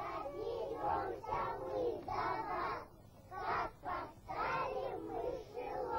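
A group of young children's high voices calling out together in short phrases, with brief pauses between them.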